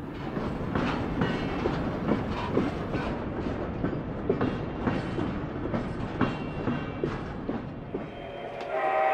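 Large-scale (1:29) model freight cars rolling past on the track, a steady rumble with many irregular clicks of wheels over rail joints. Near the end a steady pitched tone begins.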